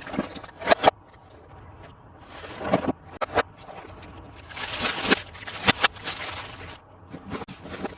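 Plastic toy and packaging being handled: scattered sharp clicks and knocks, with a longer scraping rustle about halfway through.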